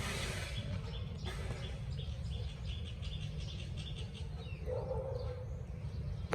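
A small bird chirping over and over, about three short high chirps a second, fading out around the middle, over a steady low rumble. A rush of hiss fills the first second.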